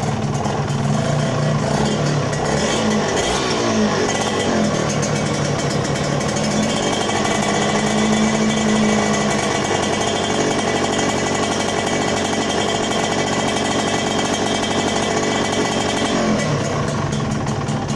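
Yamaha TZM 150's two-stroke single-cylinder engine running at its first start after ten years laid up, the revs dipping and picking up again about three seconds in, held higher for a moment near the middle, and shifting once more near the end. The owner judges its ignition timing slightly off, as it is not yet fully warm.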